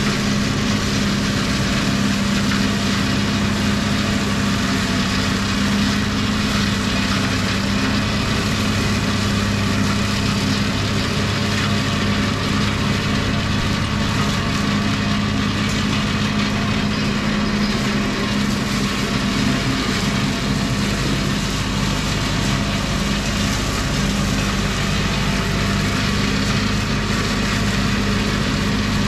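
Farm tractor's diesel engine and boom-arm brush mower running steadily as the mower cuts brush: an unbroken drone with a constant low hum.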